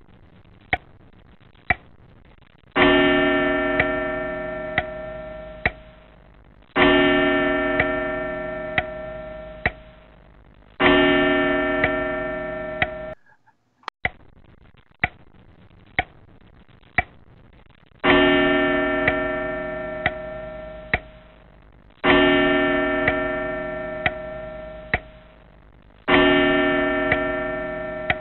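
A clock ticking about once a second, with deep bell chimes struck three times about four seconds apart, each ringing out and fading; after a short break the ticking and three chimes come round again.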